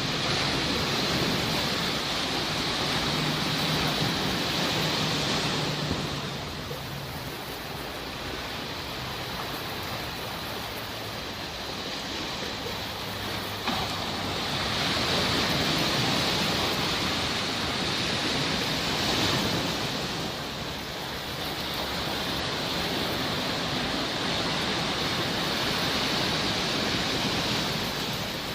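Sea waves breaking and washing on a shore, a steady surf noise that swells and eases every several seconds.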